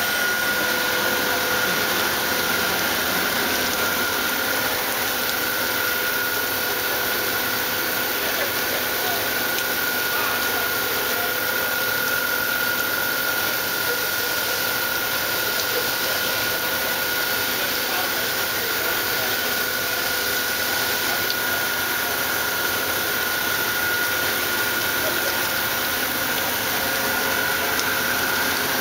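Ikegai NB130P CNC horizontal boring mill milling aluminium under flood coolant: a steady hiss of coolant spray and cutting with a constant high whine from the spindle drive.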